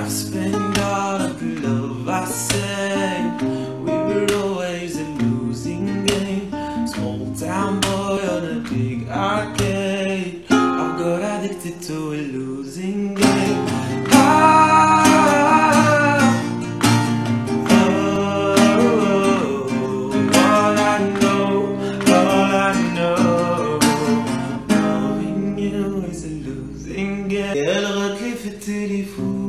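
A young man singing with acoustic guitar accompaniment, the guitar strummed and plucked under the voice. The music steps up in loudness about halfway through.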